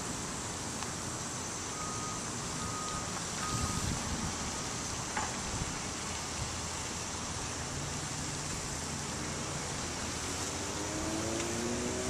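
Steady hum of road traffic, with three short electronic beeps, evenly spaced, about two seconds in. Near the end a vehicle engine comes up, rising in pitch.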